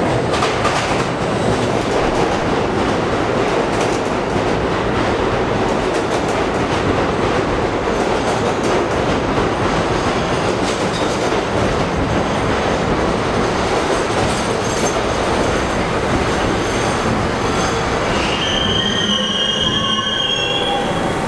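Budd R32 subway train entering the station, its wheels running loudly over the track. About eighteen seconds in, a high squeal sets in as the train slows to a stop.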